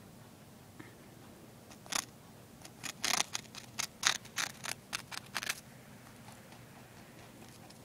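A lop-eared rabbit crunching dry toast: one crisp bite about two seconds in, then a quick run of crisp crunches, about four a second, for nearly three seconds before it stops.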